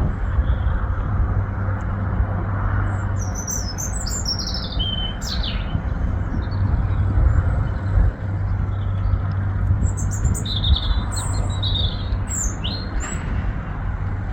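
Birds chirping and calling in two short spells over the steady low drone of a boat engine running.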